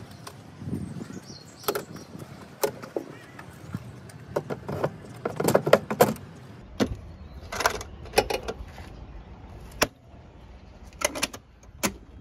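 Aluminium motorcycle side case being handled: a series of sharp clicks and clacks from its metal latches and mounting hardware, with a dense run of rattling knocks about halfway through.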